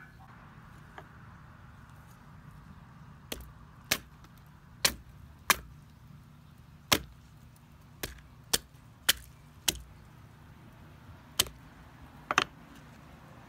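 A mallet striking lemons on stone paving: about eleven sharp knocks at uneven intervals, starting a few seconds in, with the last two close together near the end.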